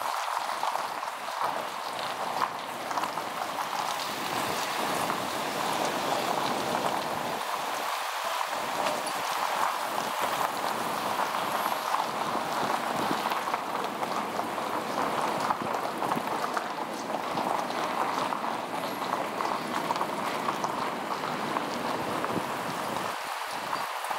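Steady driving noise from a camera mounted on the outside of a moving car: tyre and wind noise, an even rush with no breaks.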